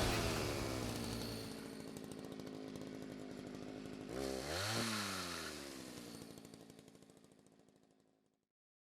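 A small engine running with a rapid pulsing note. It dips and rises in pitch once about four seconds in, then fades out.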